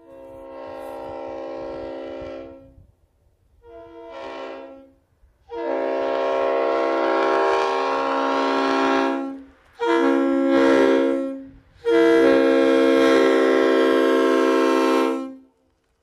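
Multi-chime train-style air horn sounding a steady chord in five blasts: two short ones, then a long blast of about four seconds, a short one, and a final blast of about three and a half seconds. The last three are louder.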